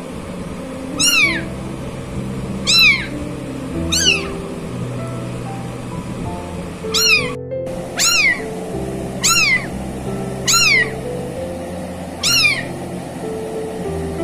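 Young kitten meowing over and over, about eight short high-pitched meows that each slide down in pitch, over background music with sustained notes.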